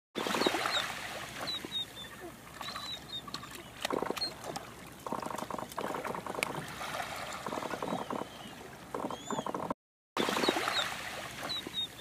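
Gentoo penguin chick begging: several bursts of rapid, squeaky chattering calls, with small high chirps between them, over faint lapping water. The sound drops out briefly just before ten seconds in.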